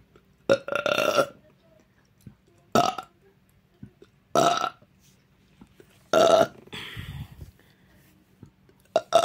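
A person belching loudly and repeatedly: four deep burps about every one and a half to two seconds, with a fifth starting near the end.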